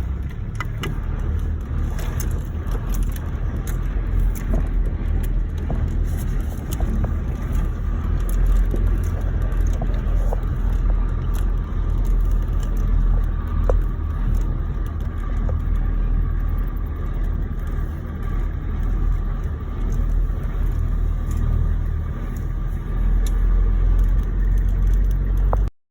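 A motor vehicle driving: steady low engine and road rumble with scattered small clicks and rattles, cutting off abruptly at the very end.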